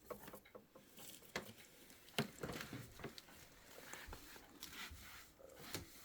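Faint, scattered clicks and knocks with some rustling: objects being handled.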